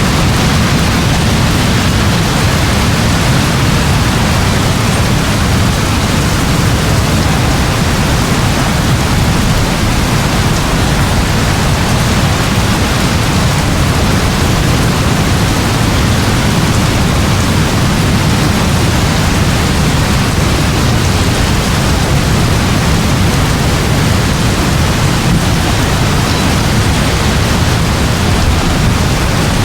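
Steady, heavy rainfall in a forest: an even, unbroken wash of rain with a deep low rumble underneath.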